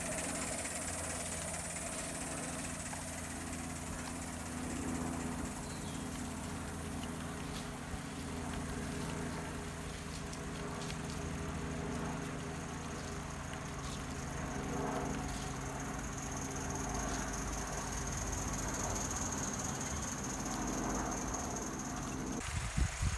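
O gauge live steam LNER Q6 locomotive running steadily along the track at the head of a long goods train, a continuous running sound of the engine and wagons on the rails. It changes abruptly near the end, with a few knocks.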